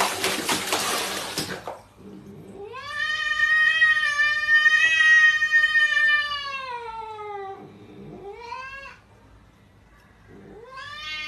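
Water splashing in a plastic basin for the first second or so, then a cat's long drawn-out yowl that rises and then slowly sags in pitch over about five seconds. A short call follows, and another long yowl begins near the end.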